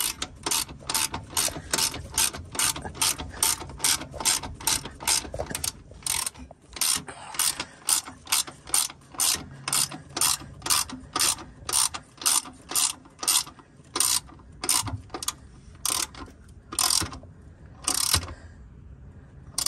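Hand ratchet wrench clicking in quick, even strokes at about three a second, the strokes slowing and spreading out toward the end, as the T-bracket mount bolts are run down tight.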